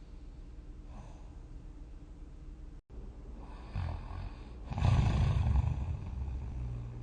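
A sleeping person snoring: quiet breathing at first, then a snore that swells from about four seconds in to a loud peak around five seconds and fades over the next second.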